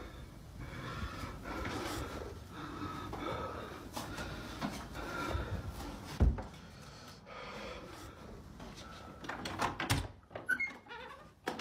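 Footsteps and handheld phone-handling noise in a quiet small room, with one heavy thump about six seconds in. Near the end a few sharp clicks come as a door is reached, like a door being handled.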